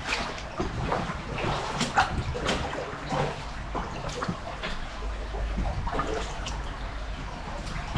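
Irregular splashing footsteps wading through a shallow, flowing brook, over the steady rush of running water.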